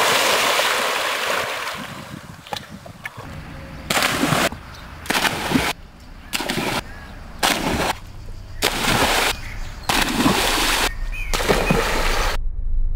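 A boy jumping into a swimming pool: one big splash at the start, then a quick run of shorter splashes, each under a second. The sound stops suddenly near the end.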